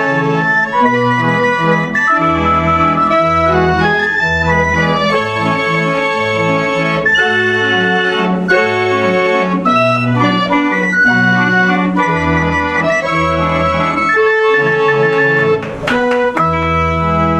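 Hand-cranked Frati & Co. barrel organ playing a tune on its pipes over a pulsing bass line. There are a few sharp clicks shortly before the end.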